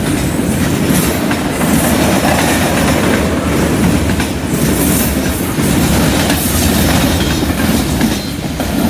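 Freight train of boxcars, covered hoppers and gondolas rolling past, steel wheels giving a steady rumble with a clickety-clack over the rail joints.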